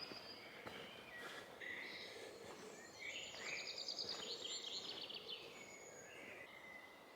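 Faint birdsong: small birds chirping, with a fast trill of repeated high notes for about two seconds near the middle.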